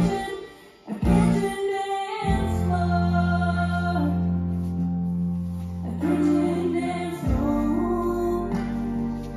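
Song playing for a line dance, with singing over guitar and long held bass notes. The music dips almost to nothing about half a second in and comes back about a second in.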